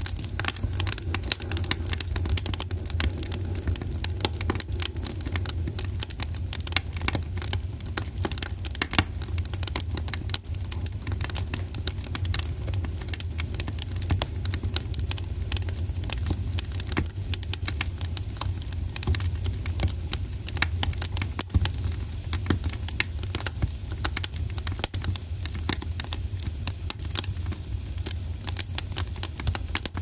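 Wood fire crackling, with dense, irregular snaps and pops over a steady low rumble of burning.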